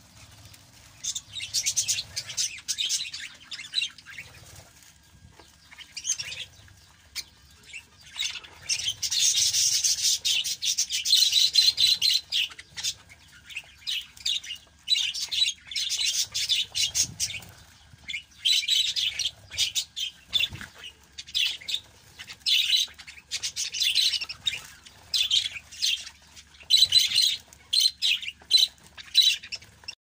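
Caged budgerigars chattering and chirping in busy, irregular bursts of rapid high chirps, quieter for a few seconds near the start and loudest about ten seconds in.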